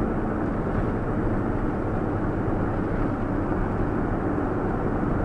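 Steady engine and road noise heard inside a moving vehicle's cabin while driving along.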